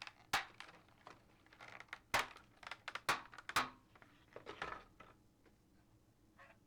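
Plastic and paper packaging of a model railroad car being handled: a string of sharp crinkles and clicks, several loud ones in the first four seconds, then a few faint ones.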